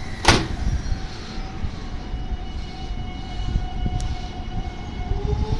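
Electric rapid-service commuter train pulling away from the platform. A brief loud burst of noise comes about a third of a second in, then a steady electrical hum. Near the end a motor whine starts rising in pitch as the train speeds up.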